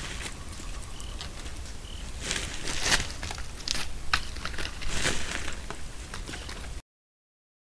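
Irregular crackling and rustling, thickest in the middle, over a steady low hum from the trail camera; the sound cuts to dead silence near the end.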